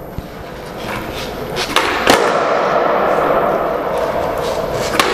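Skateboard wheels rolling on a smooth concrete floor, growing louder about a second in and then running steadily. Sharp knocks of the board come about two seconds in, the loudest, and again near the end.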